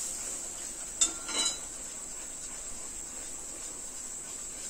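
A steel ladle clinks once against a kadai about a second in, as hot ghee and oil go into a besan and sugar mixture, followed by a short rustle and faint stirring with a wooden spatula. A steady high-pitched trill runs underneath.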